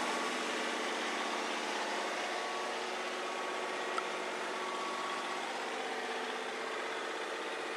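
Sailboat's auxiliary engine running steadily under way, heard from inside the cabin as an even hum. A brief click about four seconds in.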